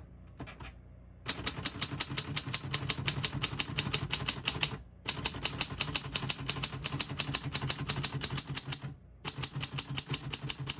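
1940 Corona Comet manual portable typewriter being typed on: fast runs of sharp key-and-typebar strikes begin about a second in, with two brief pauses.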